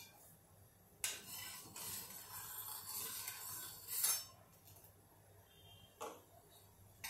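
Steel kitchen vessels and utensils clinking and clattering: a sharp knock about a second in, a few seconds of clatter ending in a louder clink around four seconds in, and one more click about six seconds in.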